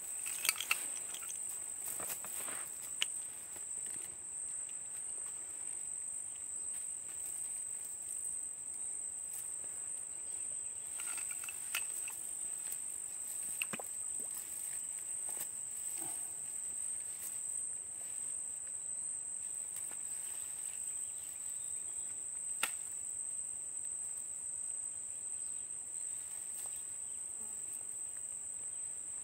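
Insects chirring in a steady, high-pitched drone, with a few scattered light clicks.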